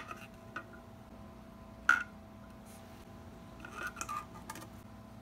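A few sharp plastic clicks and taps as a hard plastic wall-mount plate is handled and pressed against a stucco wall: one at the start, a louder one about two seconds in, and a short cluster about four seconds in.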